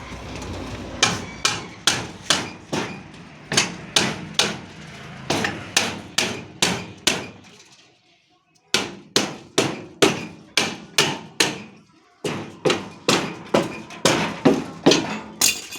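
Hammer blows struck in a steady rhythm, about two a second, with short ringing tails. The hammering stops briefly twice.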